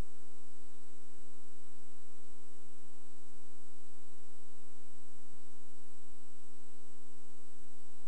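Steady electrical mains hum with a buzzy stack of many overtones, unchanging throughout.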